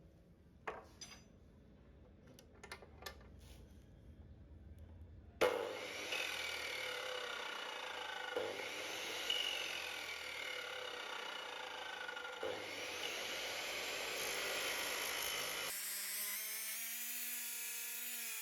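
A few faint clicks, then about five seconds in, a Bosch power cutter's blade cuts into wood: a sudden, loud, rough sawing noise with a whine that sweeps up and down in pitch. Near the end it changes to a smoother whine that dips and rises.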